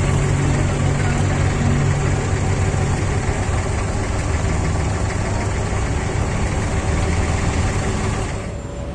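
Boat engine running steadily: a low droning hum with a loud hiss over it, which drops away near the end.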